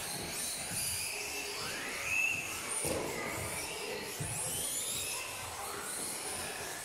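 Several RC off-road buggies' motors whining as they race, high pitches rising and falling over one another as the cars speed up and slow down.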